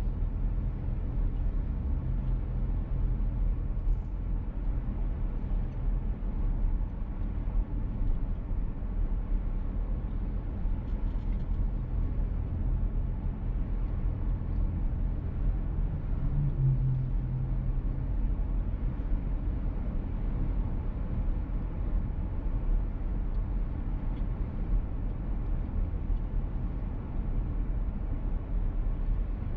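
In-cabin driving noise of a VW T-Roc petrol car: steady road and tyre rumble under the engine's hum. The engine note briefly gets louder and higher about sixteen seconds in.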